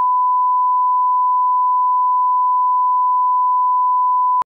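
Colour-bar reference test tone: one steady pure beep tone that cuts off suddenly near the end.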